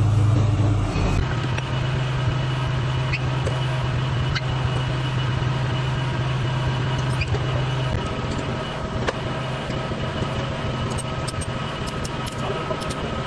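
Steady hum of running machine-shop equipment, with a few light metallic clicks and taps from handling steel parts.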